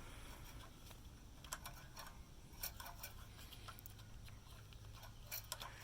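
Faint, scattered light clicks and taps of small metal parts as the throttle linkage rods are fitted to a small-engine carburetor, with a cluster of clicks near the end.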